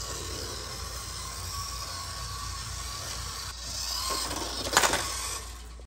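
Small electric motor of a Kyosho First Mini-Z toy RC car whining as it drives, with a faint steady tone. It grows louder about three and a half seconds in, with a short clatter of clicks near the end.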